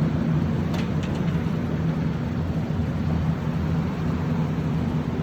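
Steady low hum of a running machine or engine, with two faint clicks about a second in.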